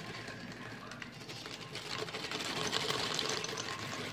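Baked almonds poured from a plastic bag into a blender jar, a rapid patter of nuts clattering against the jar and onto each other.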